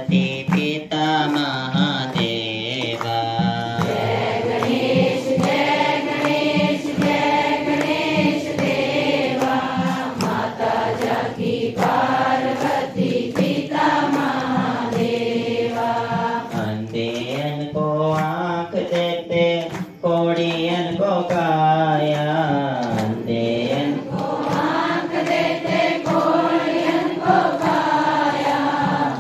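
Hindu aarti hymn being sung, with long wavering sung notes over a steady percussion beat.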